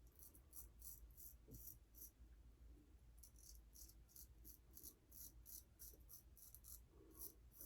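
6/8 straight razor scraping stubble through thick shaving lather in short, faint strokes, about four a second, with a pause of about a second between two runs of strokes.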